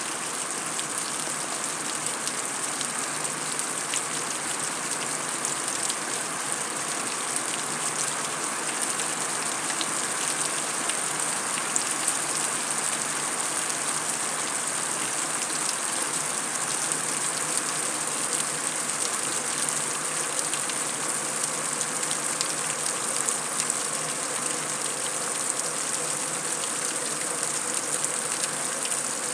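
Heavy rain falling on concrete: a steady hiss with many small drop ticks and the odd louder splash.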